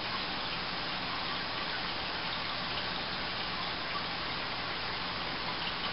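Steady, even hiss with a faint low hum underneath. Nothing starts, stops or changes.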